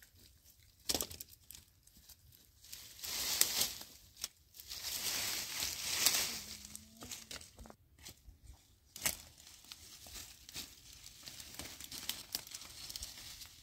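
Dry leaves and dead twigs rustling and crunching as firewood is gathered by hand and underfoot, in two longer stretches in the first half. A few sharp cracks are heard, one about a second in and one near nine seconds.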